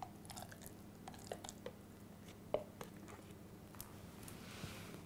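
Mayonnaise going from its jar into a glass mixing bowl of macaroni: a few faint, soft wet squishes and light clicks against a quiet background.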